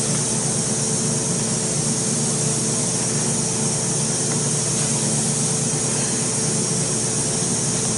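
Steady machine hum with a hiss over it, unchanging throughout.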